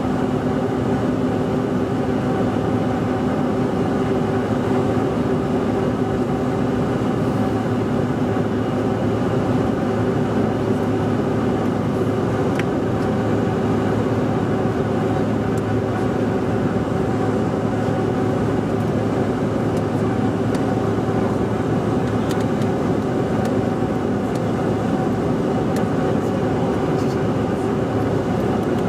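Cabin noise of a Bombardier CRJ900 with its two rear-mounted GE CF34 turbofans running at steady thrust: an even rush of airflow with several steady engine tones held throughout.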